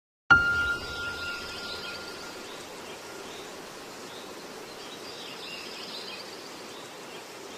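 A sudden ringing chime-like tone that fades away over about two seconds, over a steady, faint bed of ambient hiss with a few faint high chirps, as the soundtrack's intro.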